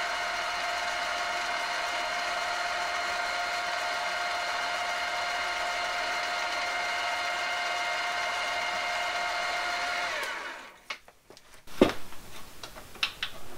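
Milling machine spindle running steadily while a 4 mm end mill cuts the gap in a graphite-filled PTFE piston ring, a steady whine; about ten seconds in the spindle is switched off and the whine dies away, followed by a few light clicks.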